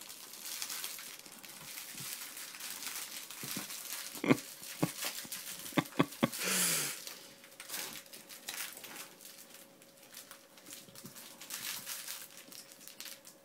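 Rustling and crinkling of a plush zebra toy being tugged and shaken by a puppy, with a few sharp clicks and a short louder rush of noise between about four and seven seconds in.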